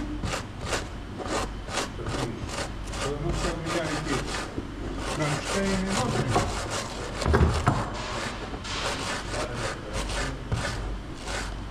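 Rhythmic back-and-forth scraping, about three strokes a second, as deposit build-up is cleaned off the rim of a semi-trailer's air brake chamber, the build-up that was letting it leak air. One heavier knock about seven seconds in.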